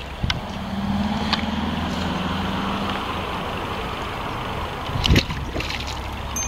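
A motor engine running steadily, with a low hum throughout and a higher steady tone during the first three seconds; a single thump about five seconds in.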